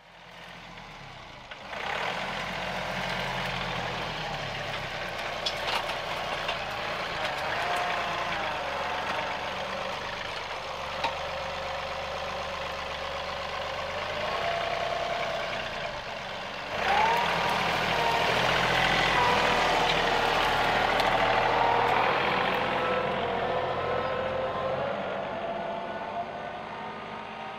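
John Deere 2038R compact tractor working its front loader, the engine running under load with a whining tone that rises and falls in pitch. It starts about two seconds in and gets louder part way through.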